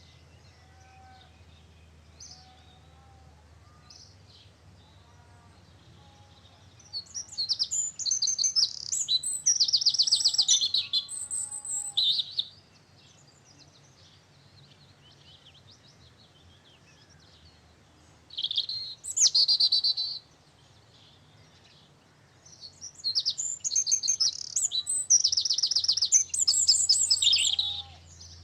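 A songbird singing loud phrases of rapid high trills several seconds long, three times with pauses between, while fainter calls of other birds sound in the gaps.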